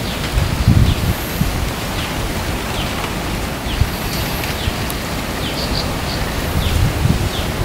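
Outdoor nature ambience: a steady rush of wind with low gusts hitting the microphone, short falling bird chirps repeating every second or so, and a faint high insect whine now and then.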